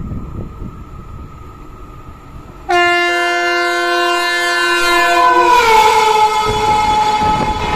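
Electric locomotive's horn on an Indian express, sounding loud and long from about three seconds in as the train approaches at speed. Its pitch drops as the locomotive passes, and the horn then gives way to the rumble and clatter of the coaches going by.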